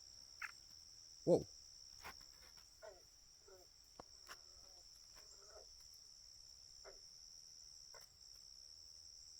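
Faint, steady high-pitched insect chorus, with a few faint short calls in the background.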